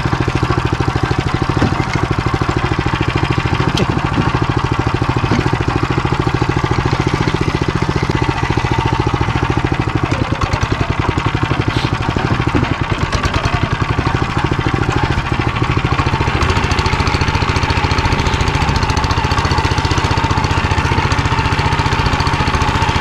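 Walk-behind tractor's engine running steadily under load as the machine drives along, with a fast, even firing rhythm. The engine is warm, but the cold transmission turns hard and loads it.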